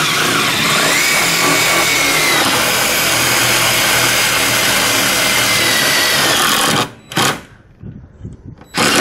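Cordless 20V drill driving a screw into metal, running steadily for about seven seconds with a faint whine, then stopping; two short spurts of the drill follow near the end.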